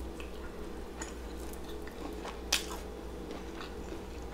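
Soft wet squishes and a few short clicks as a piece of fried seafood is dipped into a glass bowl of honey Dijon mustard sauce, the sharpest click about two and a half seconds in, over a steady low hum.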